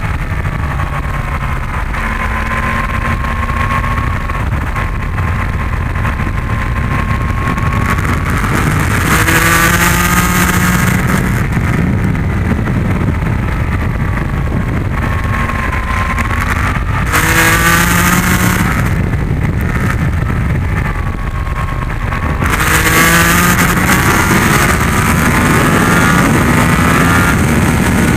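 Yamaha MT-10's crossplane inline-four engine and wind rush on a circuit lap. The engine note climbs hard under acceleration about a third of the way in, again just past the middle, and from about four-fifths of the way in to the end, and falls away off the throttle in between. A loud wind hiss swells with each climb.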